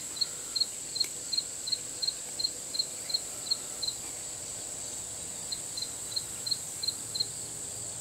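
A cricket chirping, short even chirps about three a second, with a pause of a second or two midway, over a steady high-pitched whine.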